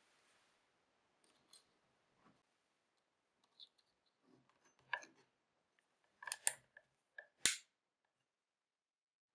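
A handful of scattered light clicks and knocks from something being handled, sparse at first and sharper toward the end, where two crisp knocks about a second apart are the loudest.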